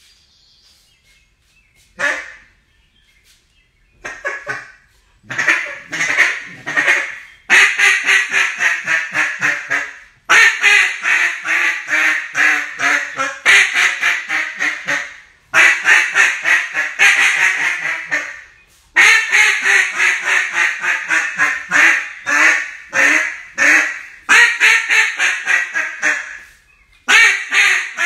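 Mouth-blown duck call sounding strings of rapid quacks, about four a second, each string starting loud and falling away, repeated over and over with short breaks between them.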